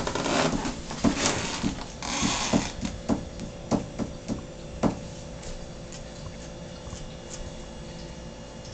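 A bag rustling and crinkling as it is handled, then about ten light, sharp knocks and clicks over the next few seconds, thinning out to a few faint ticks.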